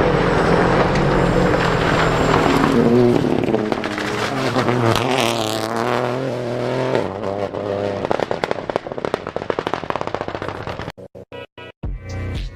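Rally car engine at full throttle, its pitch rising and falling through gear changes, then a rapid string of cracks and bangs from the exhaust. Near the end the sound cuts in and out in short stutters and electronic music with a steady beat begins.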